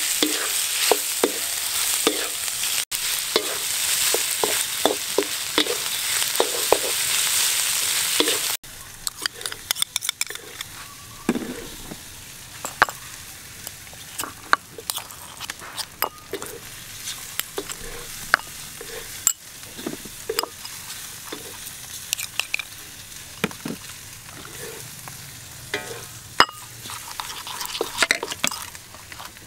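Pork large intestines sizzling loudly in a hot wok, with a wooden spatula scraping and knocking against the pan as they are stir-fried. About a third of the way in, the sizzling cuts off abruptly and gives way to quieter scattered clicks and taps of a metal spoon mixing sauce in a ceramic bowl.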